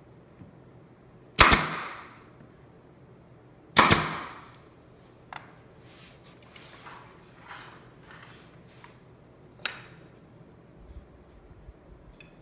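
Pneumatic 23-gauge pin nailer firing twice, about two and a half seconds apart, each shot a sharp snap that trails off briefly. Faint clicks and handling noises follow.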